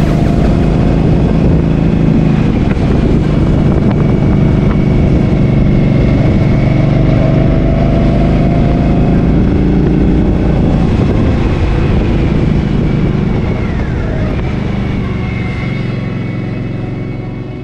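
Motorcycle engine running steadily under way, with road and wind noise over it; the sound fades down near the end.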